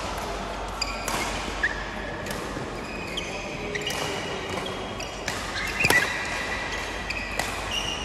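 Badminton rally on an indoor court: a string of sharp racket hits on the shuttlecock, the loudest about six seconds in, with short high squeaks of shoes on the court floor between them.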